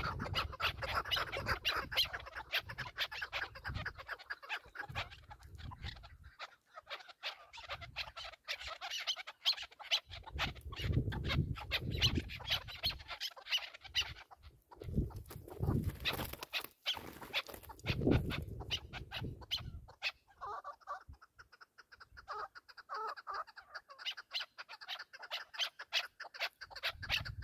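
Chukar partridges calling, a long rapid run of clucking notes. Wind gusts rumble on the microphone now and then.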